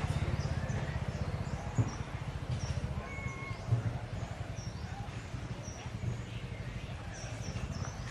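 Birds chirping in short, repeated high notes, with a steady low rumble under them and a couple of brief knocks.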